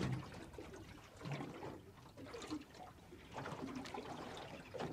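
Quiet, irregular lapping and trickling of seawater against a boat's hull.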